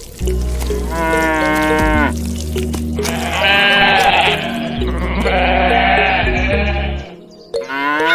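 Background music with farm animal calls laid over it: one falling call about a second in, then two longer calls around the middle.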